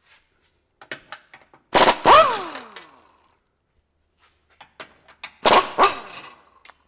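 Impact wrench firing two short bursts a few seconds apart, loosening the bolts of a skid plate under the transmission. After each burst the motor spins down with a falling whine.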